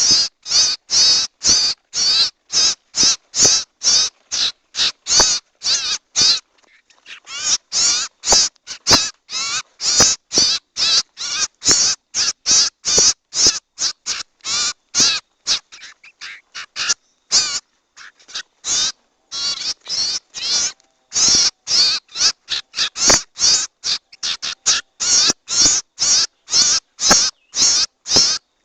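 A recording of a bird's harsh, raspy calls used as a bird-catching lure, which the uploader gives as a young sirtu's call. The short calls repeat about twice a second, with a brief break about six seconds in.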